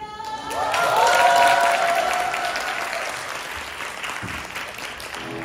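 Audience clapping and cheering, with a few long whooping voices in the first couple of seconds; the applause swells quickly and then slowly dies away.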